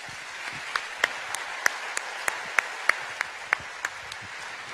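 Audience applauding. Sharper claps stand out in an even beat of about three a second, easing off near the end.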